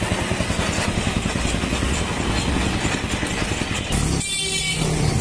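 Two-stroke motorcycle engine running with rapid, even firing, now starting after the fuel level in the carburettor has been set right. About four seconds in the sound changes abruptly and thins out, with a faint high tone.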